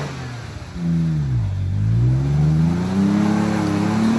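Toyota Tacoma pickup's engine revving under load as the truck drives out of deep mud; the engine note dips about a second in, then climbs steadily.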